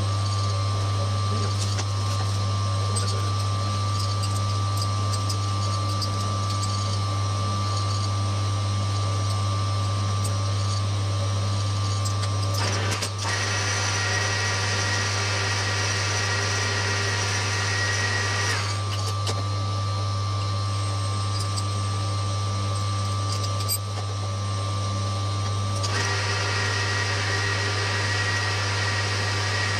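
Metal lathe running with a steady motor hum while finishing the radius nose of a stainless steel dome nut. Twice, about halfway and near the end, a higher whine with hiss joins it for a few seconds.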